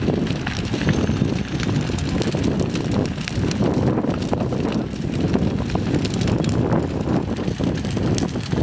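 A collapsed wooden building burning, with frequent crackles and pops over a steady low rumble. Wind buffets the microphone.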